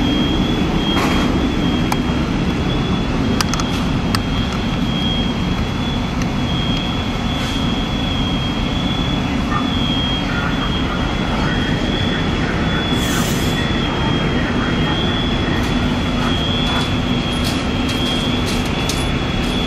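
Steady loud drone of a fire truck's engine running at the fire scene, with a thin steady high tone over it and a few short clicks.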